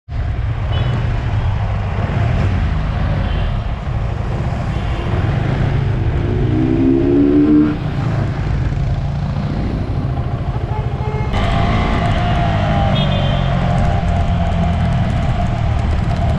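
Motorcycle riding on the road: steady wind rush on the camera microphone over the engine, with an engine note rising in pitch for about two seconds around the middle.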